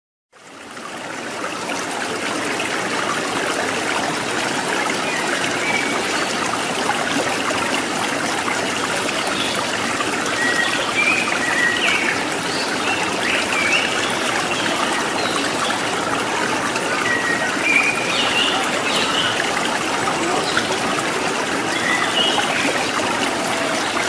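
Steady rush of a small waterfall splashing into a pool, fading in at the start. Short high bird chirps come over it now and then in the middle and later part.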